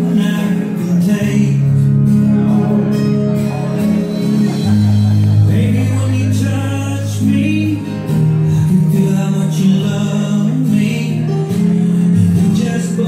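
A song with singing and guitar, its low notes held and changing every few seconds.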